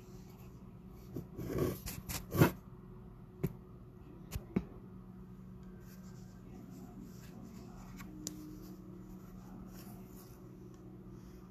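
Hands handling a plush toy cat: a short cluster of rustles and knocks about a second or two in, then a few single sharp clicks, over a low steady hum.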